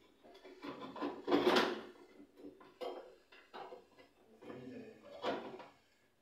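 Irregular clicks, knocks and scraping as a chrome bathtub overflow cover is handled and fitted against the tub wall, with a louder scrape about a second and a half in and another about five seconds in.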